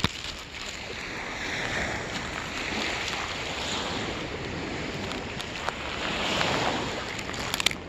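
Lake Erie waves washing onto the beach, the surf swelling and falling back as a steady hiss. A few faint clicks near the end.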